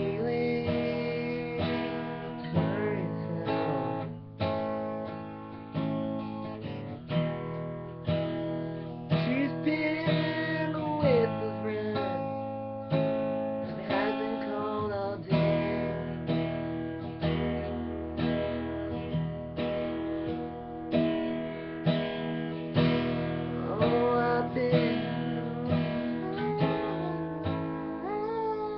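Acoustic guitar strummed in steady, rhythmic chords, with a young man's voice singing over it.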